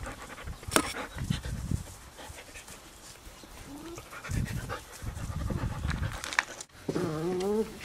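Poodle puppies panting and making low rumbling play noises as they tussle, then a short wavering whine near the end.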